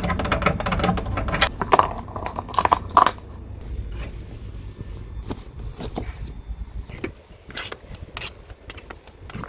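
Rattling and clicking handling noise for about three seconds, metallic and jangling, then a quieter low rumble with occasional clicks.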